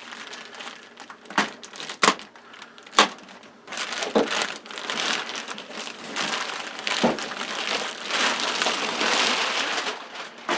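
Clear plastic bag crinkling and rustling as it is pulled off a cardboard box. It opens with three sharp clicks in the first three seconds, then turns into a dense, continuous crinkle that stops near the end.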